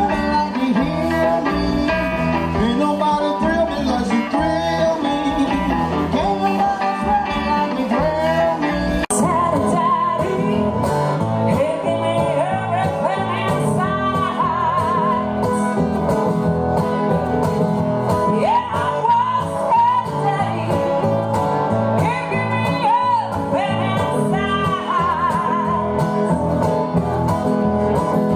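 Live blues music: an electric band with drums, bass, keyboard and electric guitars, cut off abruptly about nine seconds in. Then two acoustic guitars accompany a woman singing.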